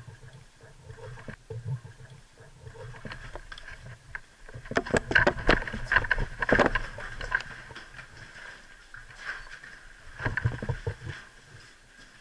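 Close footsteps and scuffs on tile and rubble with the knocking of carried gear and rifle, heaviest in the middle and again near the end.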